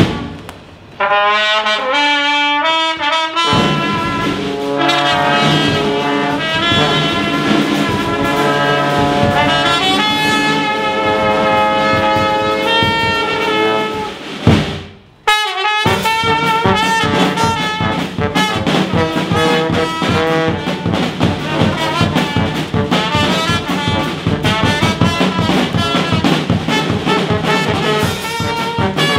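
Small brass band playing: trumpet and a tuba-like low horn over a bass drum. The music breaks off briefly just after the start and again about halfway through, then carries on with a steady drum beat.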